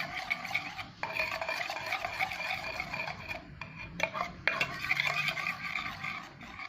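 A spoon stirring clear glue and shaving foam together in a bowl for slime, scraping steadily, with short breaks about a second in and around four seconds in.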